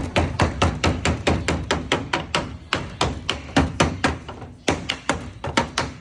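Sheet lead (code 8) being dressed with a hand tool: a rapid, even run of tapping blows, about four or five a second, as the lead is worked up square into a corner.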